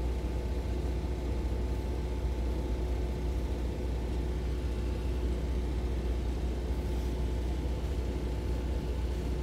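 Steady low rumble of an idling engine with a faint constant hum over it, unchanging throughout.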